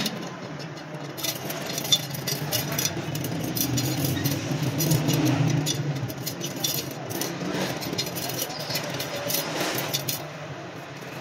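Steel spokes clicking and jingling against one another and the chrome rim as they are fed through the hub flange while a spoked motorcycle wheel is laced, with many short metallic ticks, over a steady low hum.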